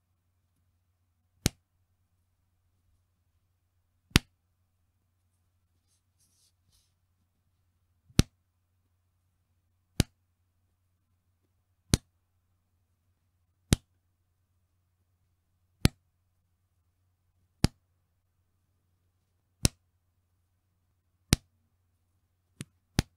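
Bra's elastic band pulled and let go, snapping back with a sharp 'pechin' slap, about every two seconds, twelve snaps in all, the last two close together. A faint rustle about six seconds in.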